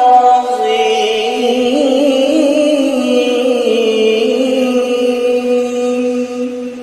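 A male qari reciting the Quran in the melodic tilawah (qiroah) style, holding one long ornamented note that wavers slowly in pitch and fades near the end.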